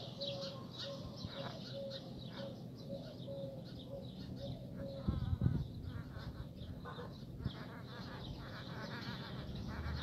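An animal calling in the background: a short call repeated about twice a second, stopping about halfway through, over a low steady hum.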